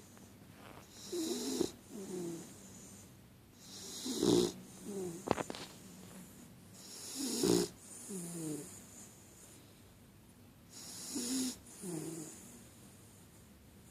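Snoring: four slow rounds about three seconds apart, each snore in two parts, a louder first sound and a shorter, softer second one. A single sharp click about five seconds in.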